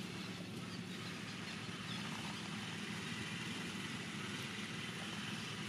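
Steady low hum of an engine running, with a faint high hiss over it.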